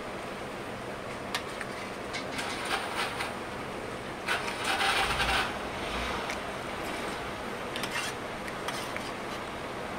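Steel spoon clinking and scraping against a stainless-steel thali while chana curry is stirred, with scattered light clicks and a longer, louder scrape about four to five and a half seconds in, over steady background noise.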